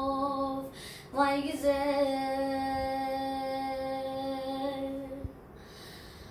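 A boy singing a Turkish folk song (türkü) unaccompanied, in long held notes. One note ends just under a second in, a new one starts with a quick upward turn and is held until about five seconds in, then the voice breaks off for a breath.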